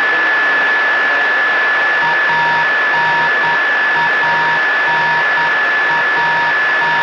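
Radio static on an open voice channel: a steady hiss with a continuous high whistle, joined about two seconds in by an irregular on-off beeping tone.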